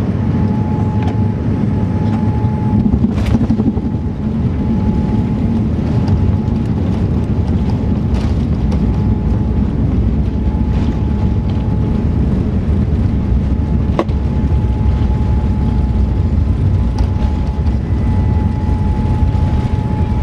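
Cabin rumble of a Boeing 787-9 touching down and rolling out on the runway with its spoilers raised, heard from a window seat over the wing, with a short thump about three seconds in.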